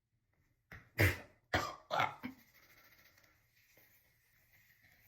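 A woman coughing: a short run of three or four coughs about a second in.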